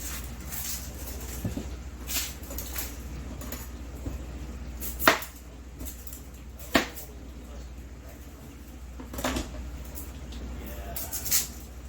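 Kitchen utensils and cookware clinking and knocking, about five separate sharp knocks spread irregularly, the loudest about five seconds in.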